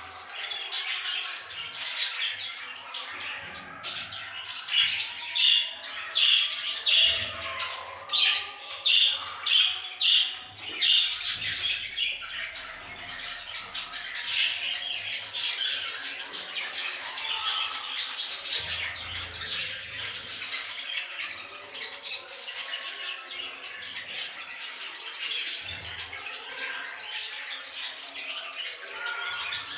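Budgerigars chattering and warbling continuously. Between about five and eleven seconds in there is a run of loud, evenly repeated squawks, roughly two a second.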